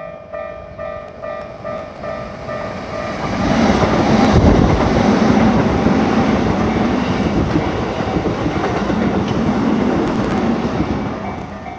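Japanese level-crossing warning bell ringing in a fast, even beat as a train passes. The train's rumble and wheel noise build from about three seconds in and drown out the bell until near the end, when the bell is heard again.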